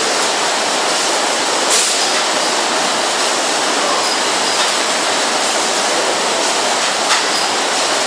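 Shrink-wrap bundling machine running on a packaging line: a steady, loud rushing noise from its heat-shrink tunnel and conveyors. There are two brief knocks, one about two seconds in and one near the end.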